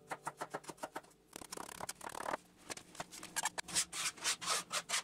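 Chef's knife chopping garlic and ginger finely on a plastic chopping board: quick taps of the blade on the board, about eight a second. About a second and a half in, the blade scrapes across the board for a moment, then the chopping goes on with louder, more spaced strokes.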